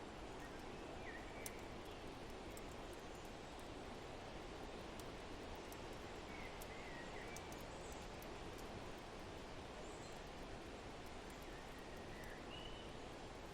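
Steady wind noise with a handful of short bird chirps, about a second in, around six to seven seconds in and near the end, and scattered small crackles from a fireplace.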